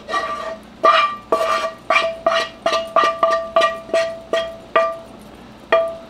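Nonstick frying pan knocked repeatedly as sautéed peppers are tapped out of it into a glass bowl: about a dozen sharp clanks, two or three a second, each leaving a short metallic ring, with a pause before a last knock near the end.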